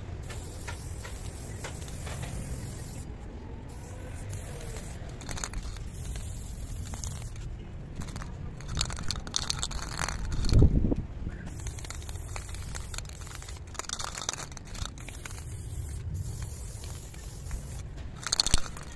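Rumbling, crackling handling noise from a handheld camera being moved about, with scattered clicks and scrapes and one louder thump about ten and a half seconds in.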